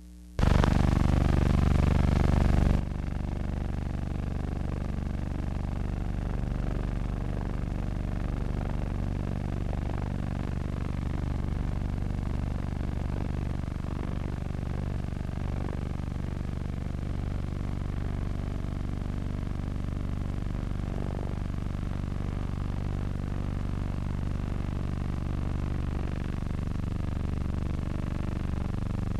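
Aircraft engine running steadily, heard as an even, rumbling noise on an old film soundtrack. It is louder and harsher for the first few seconds, then settles to a steady level.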